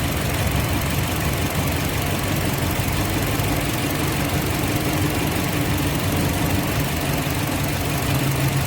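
2007 Toyota Yaris four-cylinder engine idling unevenly with a misfire while its fourth ignition coil is tested; no spark ticking comes from that coil, the sign that it is the failed coil.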